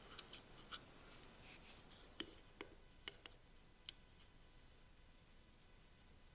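Faint clicks and light scrapes of a screwdriver working on the metal motor housing of a Rockwell 368 circular saw: about half a dozen small ticks over a few seconds, the sharpest about four seconds in.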